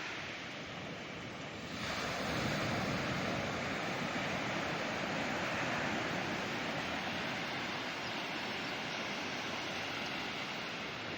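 Ocean surf on a beach: a continuous rush of breaking waves that swells louder about two seconds in and then holds steady.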